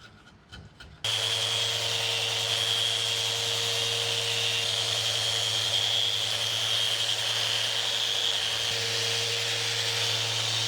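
Electric power sander running steadily on wood, sanding down excess at a joint; it starts abruptly about a second in.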